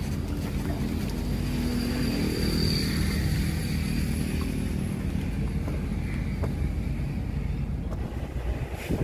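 Small boat's engine running steadily under way, a low even hum with a faint high whine above it.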